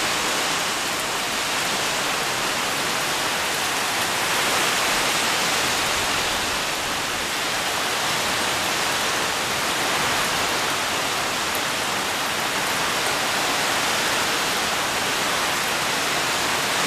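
Steady, heavy rain falling on garden foliage, pattering on palm fronds and broad leaves.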